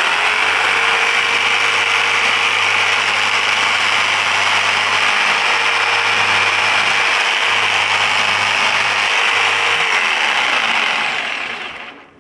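Black & Decker KS701PE 520 W variable-speed pendulum jigsaw running free without cutting, at a steady speed for about ten seconds, then released and winding down with falling pitch. It is being run to judge its vibration, which proves slight.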